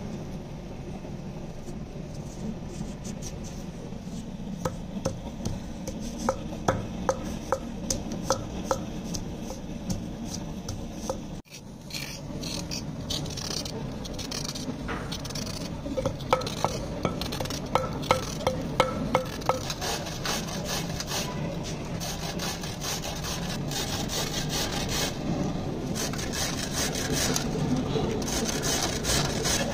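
Kitchen knife scraping and peeling the skin off a mooli (white radish), in runs of short, quick strokes.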